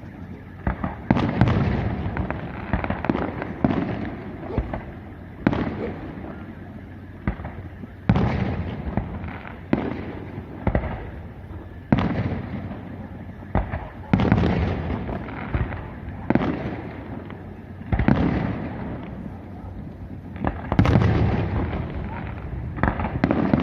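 Fireworks display: aerial shells bursting one after another, a sharp bang every second or two, each trailing off before the next.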